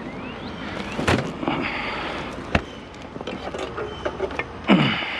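Knocks and scraping as items are handled and shifted on a trailer, with a sharp knock about two and a half seconds in and a short grunt-like vocal sound near the end.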